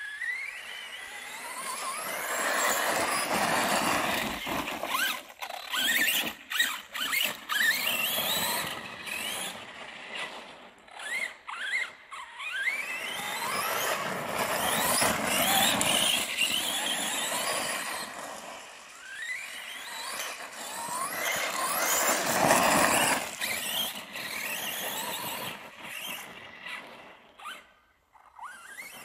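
Arrma Kraton 4S RC monster truck's brushless motor and drivetrain whining at high revs. The pitch rises again and again with each burst of throttle, and the sound cuts in and out several times.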